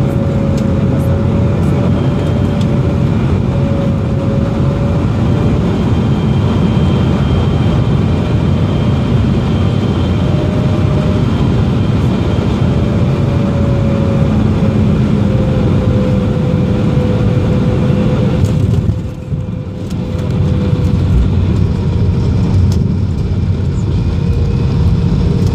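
Embraer 175 cabin noise during landing: a steady, loud rush of its CF34 jet engines and airflow, with a wavering mid-pitched tone over it. It dips briefly about three quarters of the way through, and by the end the jet is rolling out on the runway with its ground spoilers raised.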